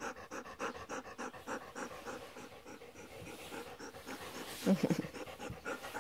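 A dog panting fast with its mouth open, about four breaths a second; its owner takes it to be hot. A brief pitched vocal sound comes about five seconds in.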